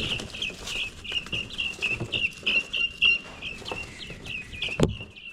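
A flock of young poultry chicks peeping continuously, several high short peeps a second. There is a sharp knock near the end.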